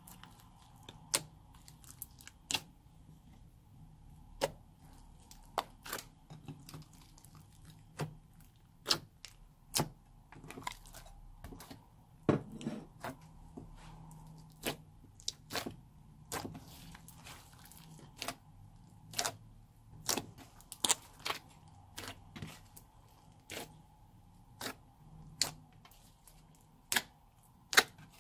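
Slime mixed with clay being squeezed and pressed by hand, giving sharp, irregular pops and clicks about one or two a second as trapped air bursts out of it.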